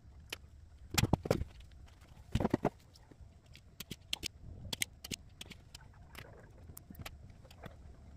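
Clicks and light taps of small parts being handled as the model locomotive is worked on: two quick clusters of knocks early, then scattered single ticks.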